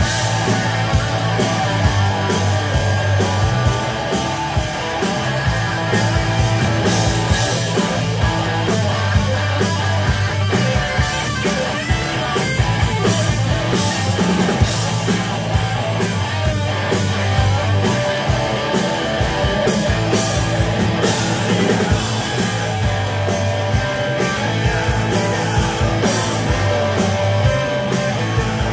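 Live hard rock band playing loud: distorted electric guitars, bass guitar and a drum kit keeping a steady beat.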